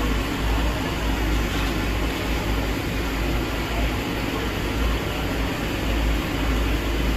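Steady background noise of a busy food stall: a constant low rumble with an even hiss over it, without distinct clatters or knocks.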